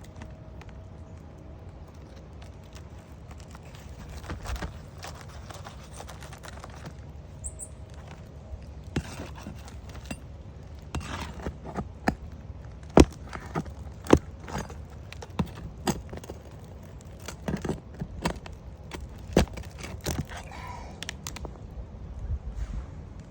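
Hand tool clicking, tapping and scraping against asphalt roof shingles and their nails as the nails are pried out, with scattered sharp knocks that grow louder and more frequent in the second half, over a steady low rumble.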